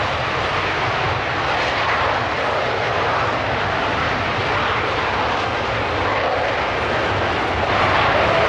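Jet engine noise from Aermacchi MB-339 jet trainers flying a display overhead: a steady rushing jet sound that swells slightly near the end.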